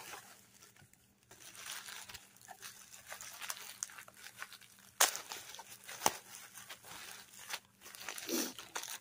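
Bubble wrap and clear plastic packaging crinkling and rustling as they are handled and pulled apart, with scattered crackles and a loud sharp click about five seconds in.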